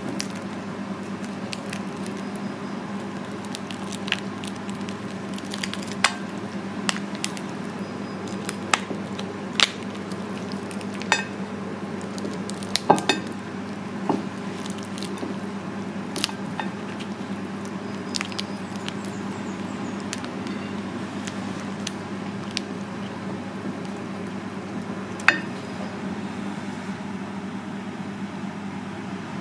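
Scattered clinks and taps of kitchenware, such as utensils against dishes and pans, over a steady background hum.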